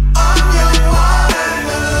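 Background music with a steady beat and deep bass; the bass drops out about two-thirds of the way through.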